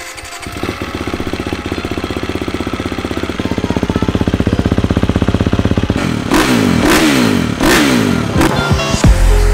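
350cc four-stroke motocross bike on its stock exhaust, idling with an even pulse, then revved in about four quick throttle blips from about six seconds in. Music with heavy bass cuts in near the end.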